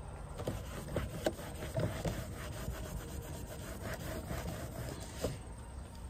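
A rag scrubbing vinyl siding to wipe off spatters of driveway sealer, in a run of uneven rubbing strokes about two a second.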